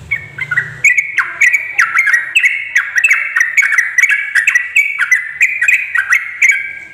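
Sooty-headed bulbul (trucuk) singing a loud, rapid, unbroken string of short chirping notes, many of them sliding downward, about three a second. It stops shortly before the end.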